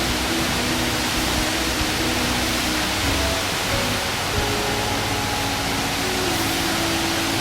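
Music with held notes that move in steps from one pitch to the next, over a loud, steady hiss-like noise.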